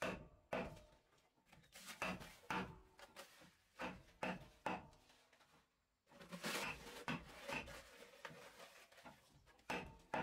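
Hands scraping and spreading a gritty gravel mix over a concrete slab. A series of short, sharp scrapes, then a longer stretch of rasping about six seconds in, and another sharp scrape near the end.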